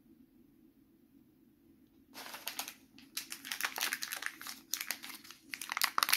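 Crinkling of a small sealed plastic-foil toy packet being handled, beginning about two seconds in as dense, irregular crackles that get louder near the end.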